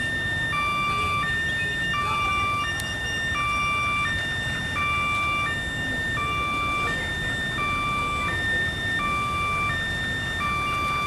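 Electronic two-tone warning alarm: a lower and a higher tone alternate evenly, each held about 0.7 seconds, over a low rumble.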